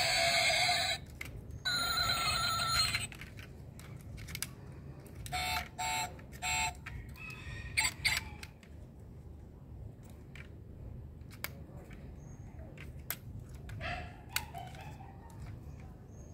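Clicks and taps of a diecast Lamborghini Sián model car being handled, its doors clicking open. Electronic sound cuts off about a second in and returns briefly around two seconds. Three short beeps come about five seconds in.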